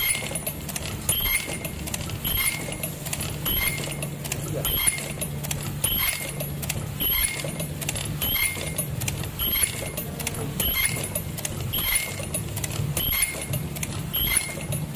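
Automatic face mask earloop welding machine running: a steady motor hum under a regular cycle of metallic clicks and short high tones repeating about once a second, one cycle per mask.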